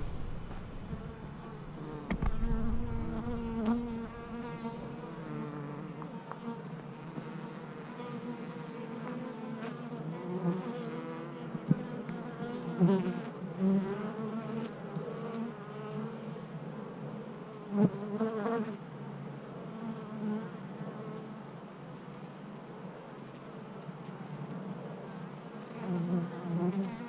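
Honeybees buzzing around a beehive, with individual bees flying close past and their hum swelling and bending in pitch. There are a few faint knocks.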